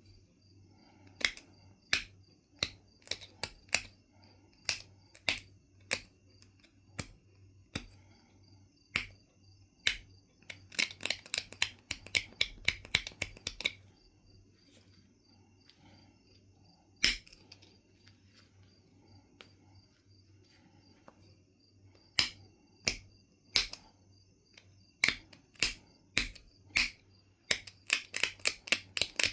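Knife River flint being knapped: sharp stone-on-tool clicks come one at a time, about one a second. Twice the clicks run together into quick rattling runs of several a second, about ten seconds in and again near the end.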